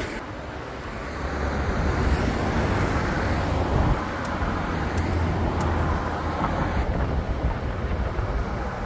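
Turbocharged car's engine running as it drives, with road noise; the sound grows louder about a second and a half in.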